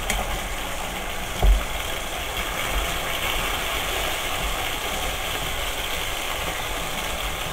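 Chicken breast fillets sizzling steadily in hot oil in a pot while they are turned with metal tongs. One short knock about one and a half seconds in.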